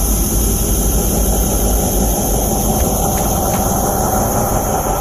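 A steady mechanical drone with a constant high whine, unchanging throughout, and a few faint ticks about three seconds in.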